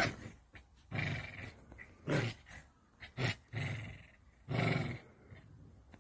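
A dog growling in about six short bursts, roughly one a second: an angry warning growl at the cat close by.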